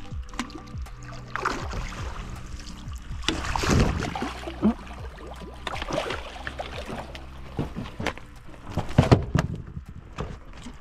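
A hooked redfish (red drum) splashing and thrashing at the surface as it is scooped up in a landing net, then sharp knocks near the end as the net and fish come onto the boat deck.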